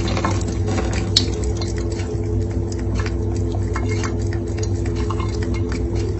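Scattered light clicks and clinks over a steady low hum, with one sharper click about a second in.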